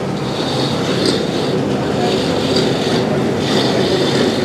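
Electric masala grinding mill running steadily at full speed while ground masala is scraped by hand out of its steel outlet chute, with a brief brighter scrape now and then.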